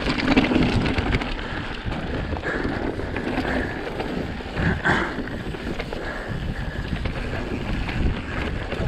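Mountain bike descending a rocky scree trail at speed: tyres crunching over loose stones and the bike rattling and clattering over the bumps, with wind buffeting the microphone.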